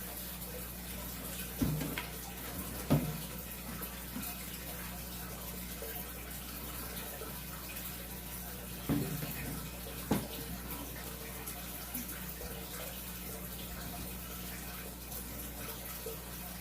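Fish-tank air bubbler running, a steady bubbling and splashing of water over a low electric hum. A few brief knocks break in about two and three seconds in, and twice more around nine and ten seconds.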